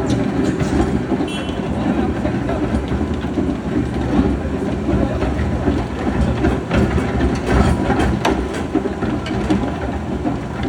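Heavy construction machinery running: a steady low engine rumble with scattered metallic clanks and rattles.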